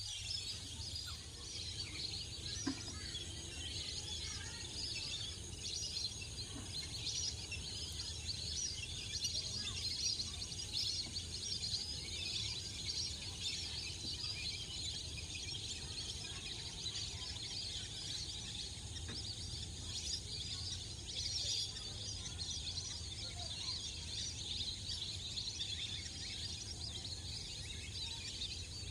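Continuous chorus of night insects chirping, many overlapping high trills, over a steady low hum.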